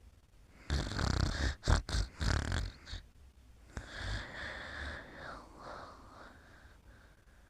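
Snoring in sleep: a loud, rattling snore about a second in, then a softer, longer breath with a faint whistle that trails off.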